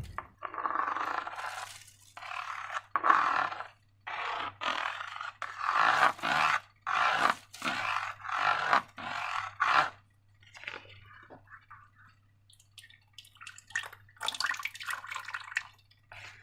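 Slime being squished and worked by hand, a run of short wet squelches one after another, fainter for a couple of seconds past the middle before a last cluster near the end.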